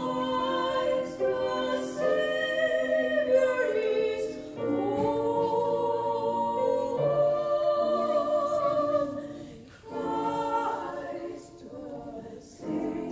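Two women singing a duet, holding long notes, with a brief break between phrases about ten seconds in.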